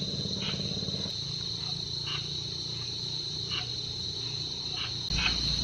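Night insects, crickets, chirring in a steady high-pitched drone, with a short chirp every second or so, over a low rumble.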